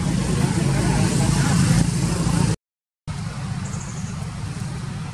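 Steady low rumble with hiss, broken by a half-second gap of total silence about two and a half seconds in, where the recording is cut. After the gap it comes back quieter.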